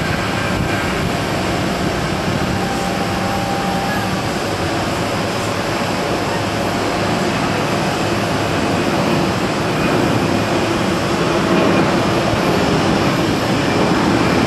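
Twin-engine jet airliner's engines at takeoff power as it climbs out, a steady rushing roar that swells a little after about ten seconds.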